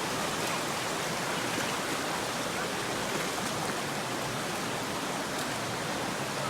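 Mountain valley stream running steadily, a constant rush of flowing water.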